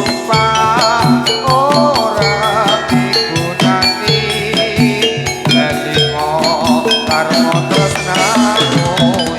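Javanese jathilan ensemble music playing: quick, even drum strokes and ringing metallophone notes, with a wavering high melody line above them.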